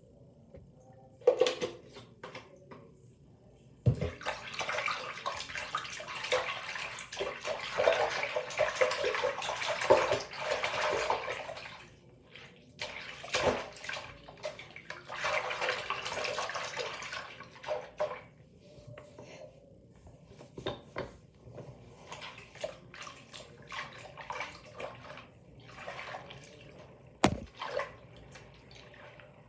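A hand swishing and splashing through a sink full of soapy water. There is one long run of sloshing, a second shorter run, then scattered small splashes and drips, with one sharp knock near the end.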